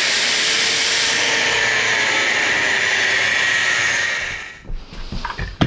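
Handheld power grinder running on the steel frame metal for about four seconds, with a steady whine, then winding down. A few light knocks and a sharp click follow near the end.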